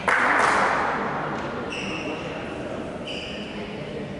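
A sudden loud burst just after the start, fading over about a second in the echoing hall, followed by court shoes squeaking on the sports floor twice.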